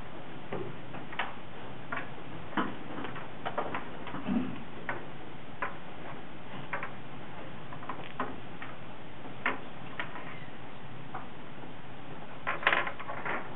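Wooden chess pieces being set down on a wooden board, sharp irregular clicks about a second apart, with a quick cluster of louder clacks near the end.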